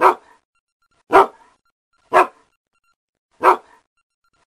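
A dog barking: four single loud barks about a second apart, with dead silence between them.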